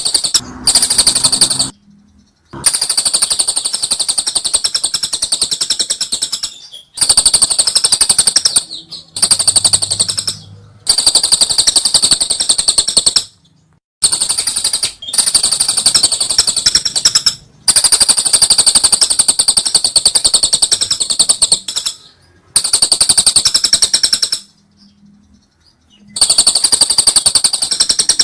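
Lovebird singing its ngekek: long bouts of very fast, rattling chatter, each two to four seconds long, broken by short pauses, about nine bouts in all.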